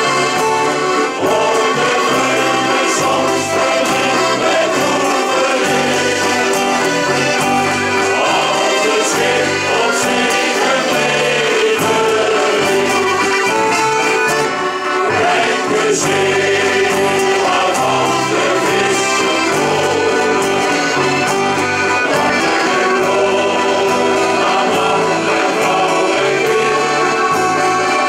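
Men's shanty choir singing together, accompanied by several piano accordions playing a steady rhythmic bass.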